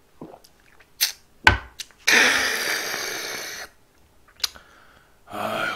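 A drinking glass set down on a wooden table with a sharp thud, followed by a long breathy exhale after a gulp of soju and beer, fading away, and a short hummed grunt near the end.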